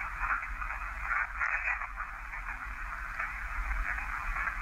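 Steady radio-like static hiss, held in a narrow middle band as if through a small speaker, swelling and fading a little, over a low hum.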